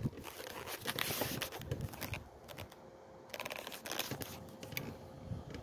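Handling noise: light rustling and small clicks of fingers and the phone being moved about. The noise comes in two spells, the first at the start and the second around four seconds in.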